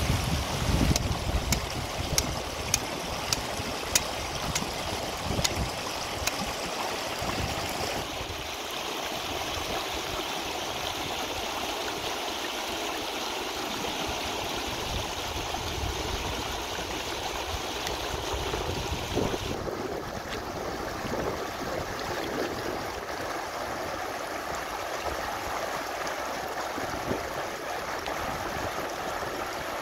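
Shallow river rushing steadily over rocks and small rapids. A series of sharp clicks comes over the water in the first few seconds, and the rush changes tone abruptly twice.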